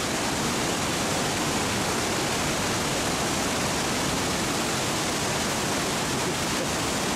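Steady rush of the Bad Gastein waterfall, a large mountain waterfall pouring down a rocky gorge.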